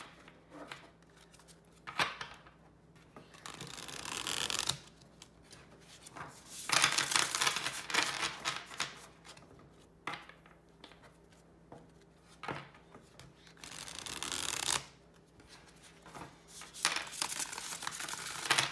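Hand-shuffling a deck of matte-finish tarot cards: about four separate bursts of cards rustling and sliding against each other with soft clicks, each a second or two long.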